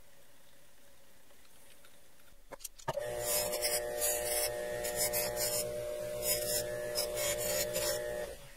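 A 6-inch bench buffer starts after a couple of clicks about three seconds in, its motor humming steadily. A small 4140 steel cufflink part is pressed against its spinning Scotch-Brite wheel again and again in scratchy rasps, deburring the edges. The sound stops shortly before the end.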